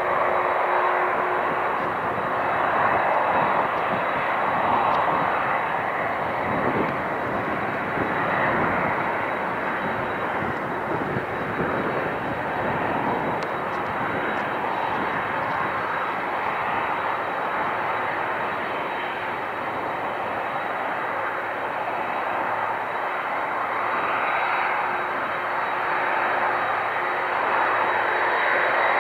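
Boeing 777's twin turbofan jet engines running at takeoff power through the takeoff roll and liftoff: a steady rushing jet noise with a thin, high steady whine over it, swelling slightly near the end.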